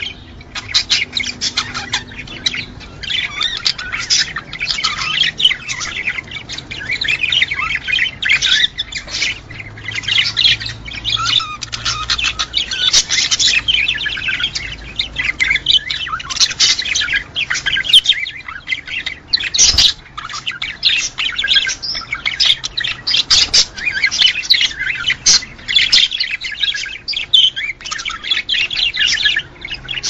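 Budgerigars chattering and warbling nonstop in dense, rapid chirps. One sharp click comes about two-thirds of the way through.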